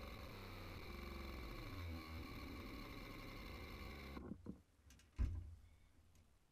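Steady low rumble with a faint hiss, which cuts off abruptly about four seconds in. A few light clicks and one dull thump follow as fishing gear is handled close by.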